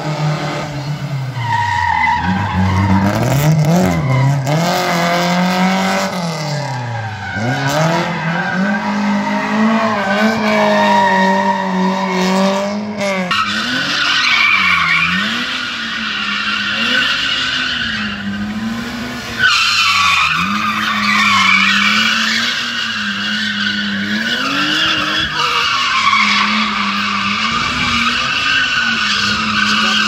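Car engine driven hard, its revs rising and falling again and again as it is thrown through a cone slalom. From about halfway through, tyres squeal loudly in stretches while the engine keeps revving.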